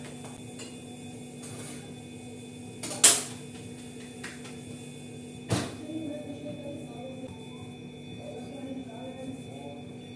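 Kitchen work sounds over a steady hum: a few soft pats of hands patting out rotla dough, then a sharp knock about 3 seconds in and a second knock with a short ring about 5 seconds in, as utensils are set down.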